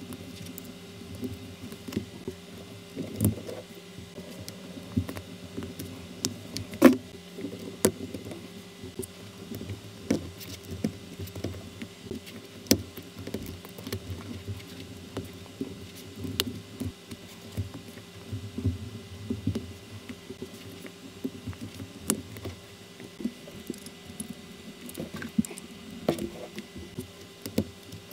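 Small plastic building bricks being handled and pressed together: irregular clicks and snaps of the pieces seating, the loudest about seven seconds in, over a faint steady hum.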